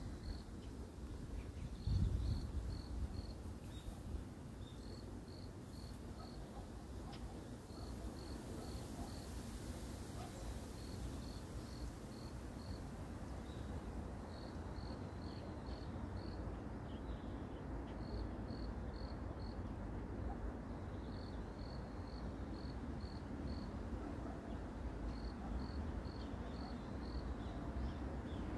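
A cricket chirping in short trains of four to six even pulses, repeating every few seconds, over a steady low rumble. A soft bump about two seconds in.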